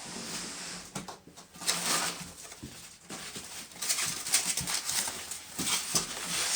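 Rustling and crinkling of packaging being handled and pulled away as the gong is unwrapped, busier from about four seconds in.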